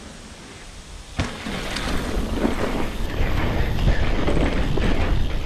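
Mountain bike riding down a rocky dirt trail: wind buffets the microphone and the tyres crunch over dirt and stones. The run starts fairly quiet, then a sharp click about a second in, after which the noise builds and stays loud.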